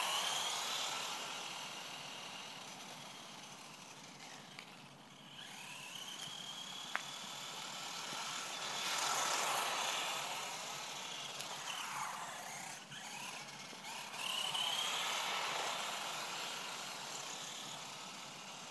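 GPTOYS Phoenix S915 RC buggy driving on asphalt, its brushed electric motor whining in a pitch that rises and falls as it speeds up and slows down, over a steady hiss. A single sharp click about seven seconds in.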